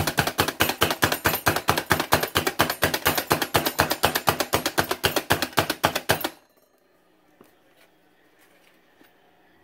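Plunger-style hand food chopper pumped rapidly to mince garlic, its spring-loaded blades clacking against the cutting board at about six strokes a second. It stops about six seconds in.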